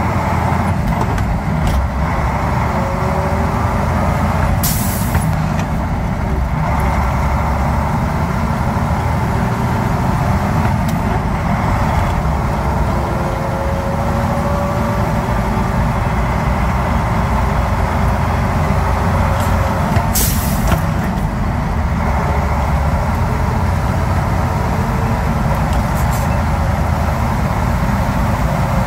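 Old truck's diesel engine running steadily under way, heard from inside the cab, with two short hisses of compressed air from the air brake system.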